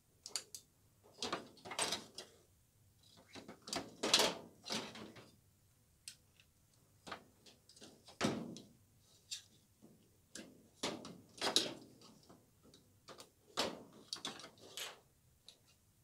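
Irregular clicks, scrapes and rustles of hands working a clothes dryer's plastic manual timer and its wiring, pulling spade connectors off terminals and pushing them onto the new timer's pins.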